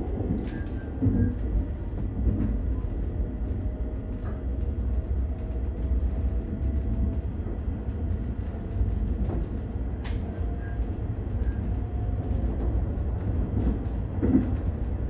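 Interior of a Seoul Metro Line 9 train's unpowered rear car while running: a steady low rumble of wheels on track, with a few sharp knocks, one about half a second in, one about ten seconds in and one near the end.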